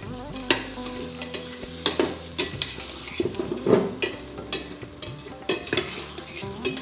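A metal slotted ladle stirring chopped tomatoes and vegetables in a pressure cooker pot, with irregular clinks and scrapes against the metal. The vegetables sizzle as they fry in oil underneath.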